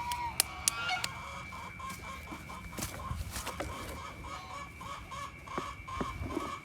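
Farm poultry calling: a run of short, evenly repeated calls, about three a second, with a few sharp clicks near the start.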